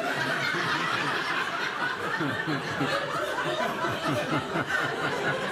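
Comedy club audience laughing, a steady wash of many overlapping voices.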